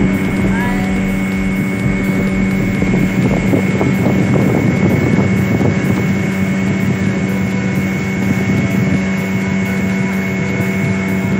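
Outboard motor driving a fibreglass boat, running steadily at cruising speed: an even drone with a thin high whine, with some wind noise on the microphone.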